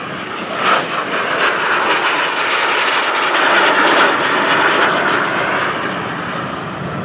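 Aermacchi MB-339 jet trainer's single turbojet engine roaring in flight during an aerobatic display. The jet noise swells to its loudest about four seconds in as the aircraft passes, then fades.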